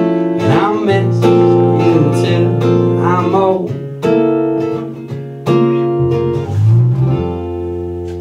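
Small acoustic band playing the closing bars of a song: strummed acoustic guitar, bass guitar and a male singer's voice. About seven seconds in, they settle on a held chord that rings on and slowly fades.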